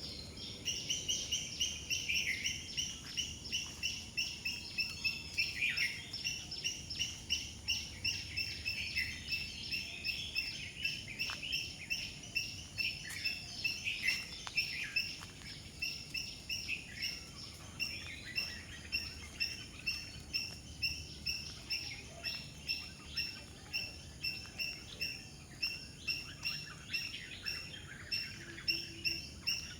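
Wild birds calling: one bird repeats a short high two-pitched note about twice a second throughout, while other birds chirp and trill around it.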